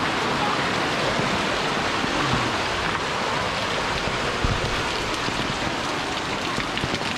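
Steady hiss of heavy rain and rushing floodwater on a road, with a brief low thump about four and a half seconds in.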